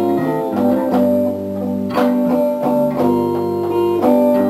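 Live blues band playing a slow instrumental passage between sung lines: electric guitar chords struck about once a second over bass guitar.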